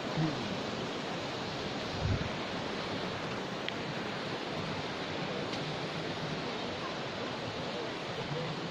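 Steady rush of flowing river water, with a brief low thump about two seconds in.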